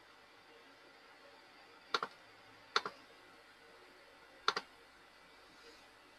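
Three sharp clicks, each a quick double tick, from pressing and releasing a computer key or button. The first two come under a second apart and the third follows nearly two seconds later.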